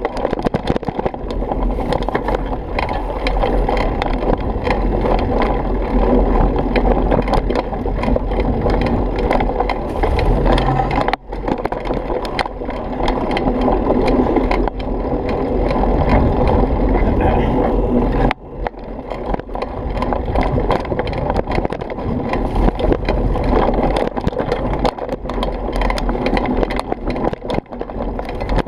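Mountain bike riding over a rough dirt trail: tyres crunching on the dirt and the bike rattling without pause. The noise drops out briefly twice, about eleven and eighteen seconds in.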